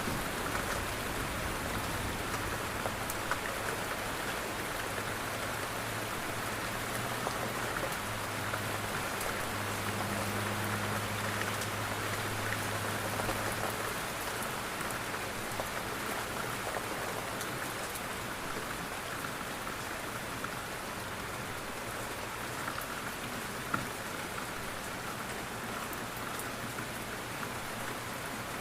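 Steady rain falling on a window pane, a continuous patter with many small individual drop ticks, over a faint low hum.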